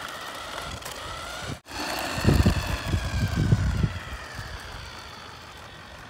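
Small electric motor of a toy remote-control semi truck whining as it drives over concrete, its pitch slowly falling. Loud low buffeting rumbles come in about two seconds in and last a couple of seconds.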